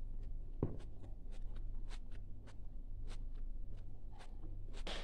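Eating sounds at a table: a run of soft clicks and ticks about three a second, with one dull knock about half a second in, over a steady low hum.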